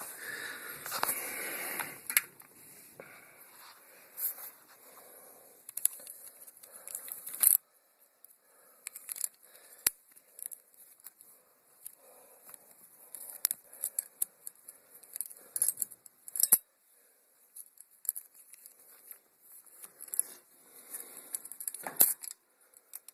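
New bicycle chain being threaded by hand onto the sprockets: metal links sliding and rattling at first, then intermittent clinks and sharp ticks with short quiet gaps.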